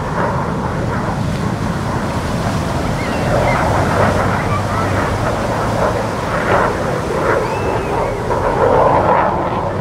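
Indistinct voices of a crowd of spectators over a steady rushing roar, with the voices more noticeable from about three seconds in.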